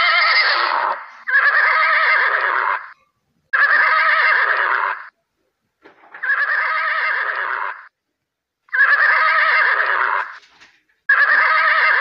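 A horse whinnying about six times in a row, each call about a second and a half long with a wavering pitch. The calls are cut apart by short, completely silent gaps, as in an edited loop of the same neigh.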